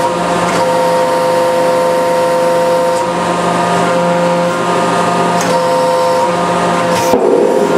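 Hydraulic press running under load while crushing a rubber band ball: a steady, loud pump hum at a fixed pitch, with a sharp crack near the end.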